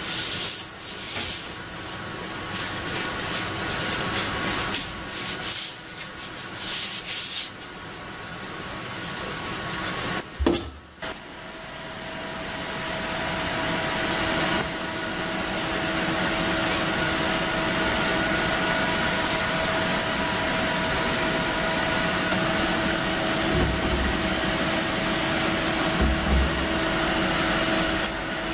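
Rough rubbing strokes of a cloth over the steel shell of an M35 German helmet through the first several seconds. After a couple of knocks, a steady hum with a faint tone runs on.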